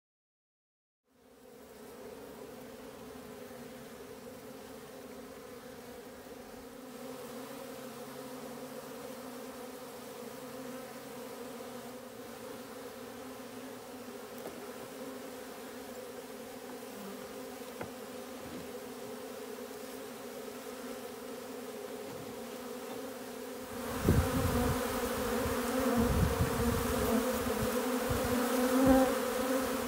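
Honeybees buzzing, a steady pitched hum that starts about a second in and gets much louder near the end as a swarming colony flies close around the hive, with a few low thumps.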